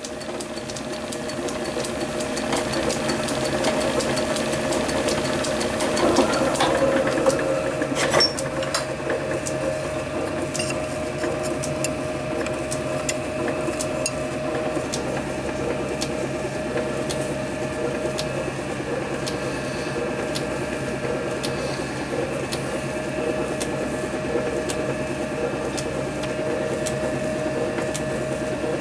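Small metal lathe running steadily, a slitting saw on a mandrel in the chuck cutting a slot in a brass rod, with a few sharp clicks about seven or eight seconds in.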